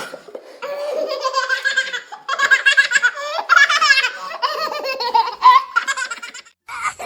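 A baby laughing in several long, wavering bouts of giggles, breaking off briefly near the end.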